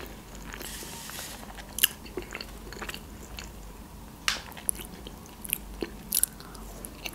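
Close-up chewing and wet mouth clicks of a person eating sushi rolls and pickled ginger, with sharp smacks every second or so.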